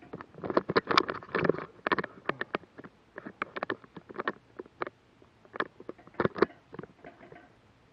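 Handling noise from an action camera being moved through a tight wooden crawlspace: irregular knocks, clicks and scrapes as it bumps and rubs against the framing. The noises come thickest in the first two and a half seconds and thin out toward the end.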